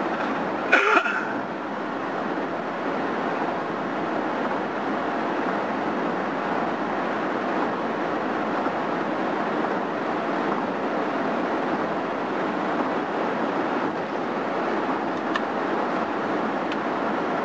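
Steady road and wind noise inside a car cruising at highway speed on the interstate. A short loud knock comes about a second in.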